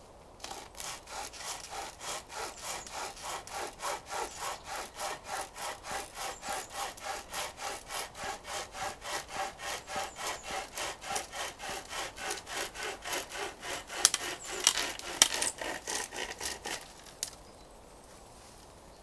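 Hand-pulled pocket chainsaw (BCB Unbelievable chainsaw) cutting through a log in rapid back-and-forth strokes, about four a second. A few louder sharp snaps come near the end of the cut, and then the sawing stops as the saw goes straight through.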